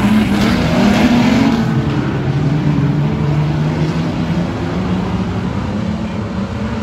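Street stock race cars running on a dirt oval, their engines loud as cars pass close by, then slowly fading as the pack moves away round the track.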